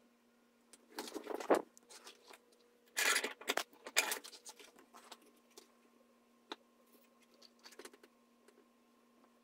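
Handling noises at a workbench as leather straps are fitted: rustling and light knocks in two short bursts, about a second in and again around three to four seconds in, then a few faint clicks. A faint steady electrical hum runs underneath.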